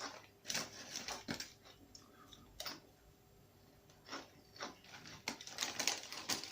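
Crunchy tortilla chips being bitten and chewed close to the microphone: irregular crisp crackles, sparse at first and coming thick and fast over the last couple of seconds.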